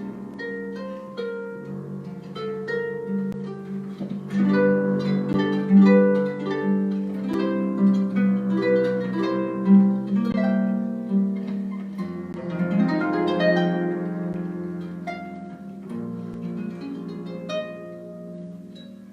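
Live instrumental jazz led by harp: plucked notes ringing over a sustained low line, with other plucked strings.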